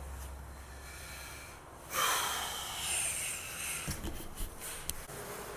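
A man's long, heavy sigh, starting suddenly about two seconds in and trailing off over a second or so, followed by a few light clicks and knocks.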